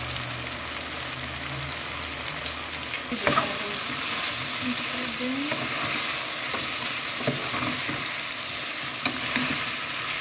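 Pequi and chunks of carne de sol sizzling in an aluminium pot on a gas burner, a steady hiss, while a spoon stirs them, with scattered scrapes and knocks of the spoon against the pot.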